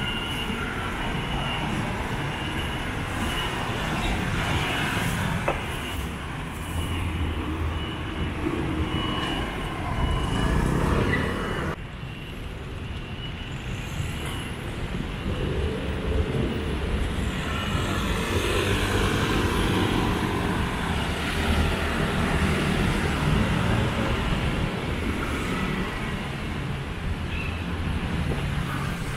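City street traffic: scooters and cars running past, a steady mix of engine hum and tyre noise, with a sudden break about twelve seconds in.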